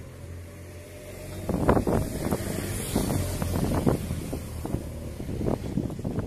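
Moto Guzzi V7 Anniversario's air-cooled transverse V-twin running at idle, a steady low hum that turns louder and more uneven about a second and a half in, with wind buffeting the microphone.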